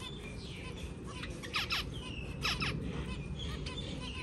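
Zebra finches calling: short, repeated call notes, the loudest a pair of quick calls about one and a half seconds in and another about two and a half seconds in.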